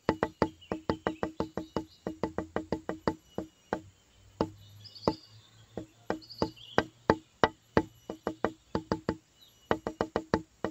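Background music of quick, evenly spaced wooden knocks, like a wood block, all on one pitch, in runs broken by short pauses.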